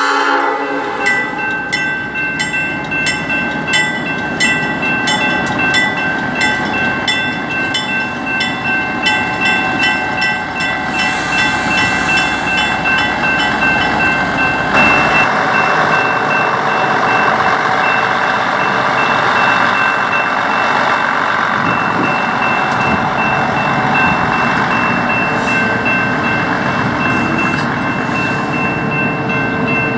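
Railroad crossing bell ringing about twice a second while the CN 1501 track geometry car, a self-propelled Budd rail diesel car, runs past the crossing. From about halfway through, the car's running and wheel noise close by grows louder and covers the strikes.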